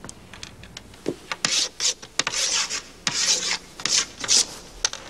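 Chalk scratching on a blackboard: about six quick, rasping strokes of a word being written by hand, after a few soft knocks.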